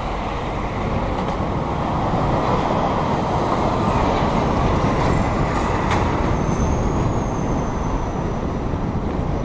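Heavy lorries driving past close alongside a moving bicycle: a steady loud rumble of engines and tyres, mixed with rushing air on the camera's microphone, loudest midway.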